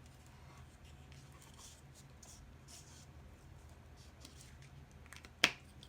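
Glue stick rubbed around the edge of a paper cut-out, faint scratchy strokes on paper, then a single sharp click near the end.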